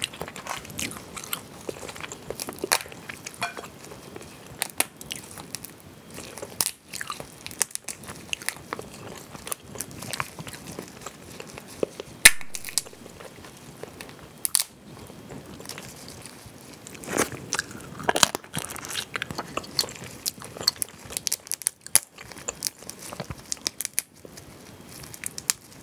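Cooked mala crayfish being cracked and peeled by hand, with chewing: irregular sharp cracks and clicks of shell, the loudest about twelve seconds in.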